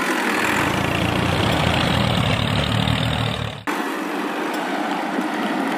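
Tractor engine running steadily with a low rumble. About three and a half seconds in it cuts off abruptly, leaving a quieter steady noise without the rumble.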